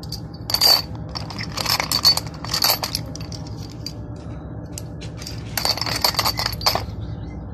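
Machined steel pistol parts clinking and rattling against one another as a handful is lifted from and dropped back into a box of them. It comes in three bursts: briefly about half a second in, again from about one and a half to three seconds in, and once more around six seconds in.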